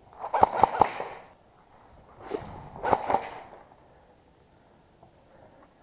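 Airsoft guns firing: a quick string of three or four sharp cracks about half a second in, then a second cluster of shots around three seconds in.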